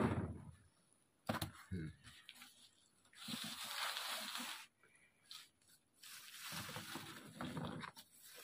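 Potatoes tipped from a shallow scoop into a jute sack, heard as two pours of about a second and a half each, a few seconds apart, with a sharp knock about a second in.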